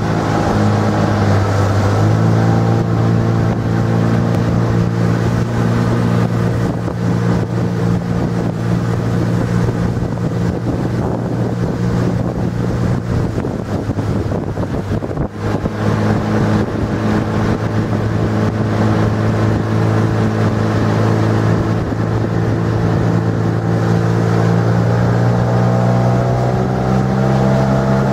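Tohatsu 9.9 hp outboard motor running steadily as the small boat goes along, with wind on the microphone. The engine eases off briefly about halfway through, then picks up again, and its pitch climbs slightly near the end.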